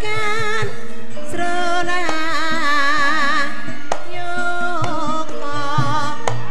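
Javanese gamelan playing for a tayub dance: a singer's wavering, vibrato-laden melody over held metallophone tones, with sharp kendhang drum strokes about once a second.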